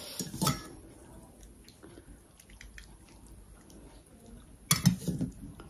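Stainless steel dishes clinking: a short clatter about half a second in, then a louder clatter of a steel bowl against a steel plate about five seconds in. Faint small sounds of eating by hand in between.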